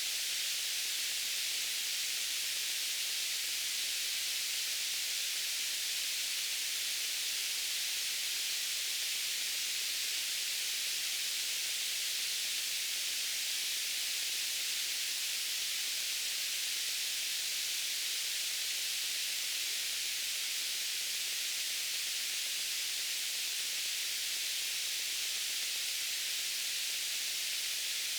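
Steady white noise: an even, unbroken hiss, strongest in the high range and thin in the bass.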